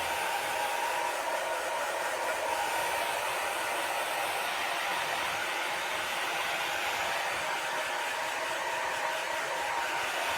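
Handheld hair dryer running steadily, blowing hot air.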